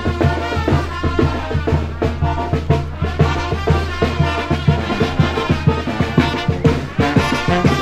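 Brass band music with drums and a tuba bass line, playing a lively tune with a steady beat.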